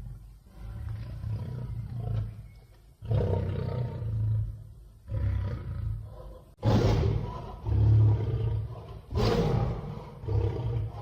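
Angry lion roaring in about six deep, rough breaths, each one to two seconds long with short gaps between them. The loudest comes a little past the middle.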